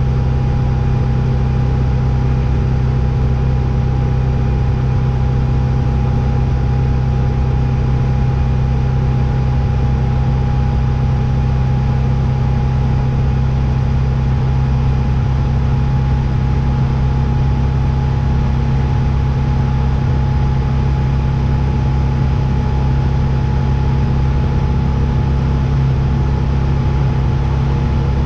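Steady, unchanging low mechanical drone, like a motor or engine running at constant speed, with a constant mid-pitched tone over the low hum.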